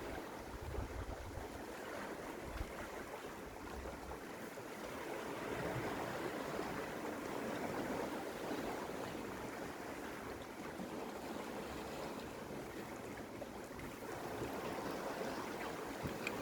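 Sea waves washing against shore rocks, a steady wash of surf with slow, gentle swells in level.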